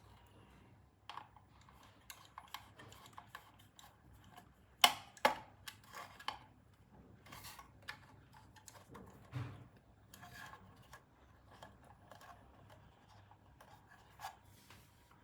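Hands working with small tools and fittings: scattered light clicks, taps and rubbing, with a pair of sharper knocks about five seconds in and another near the end.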